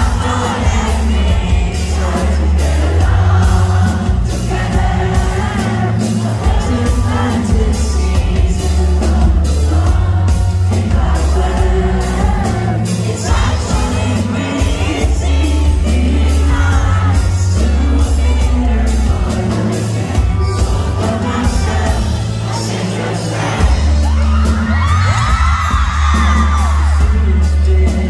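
Live band playing a soft indie pop song: a singer's voice over strummed acoustic guitar and electric guitar, with a heavy, boomy low bass. Near the end the crowd lets out high whoops and screams.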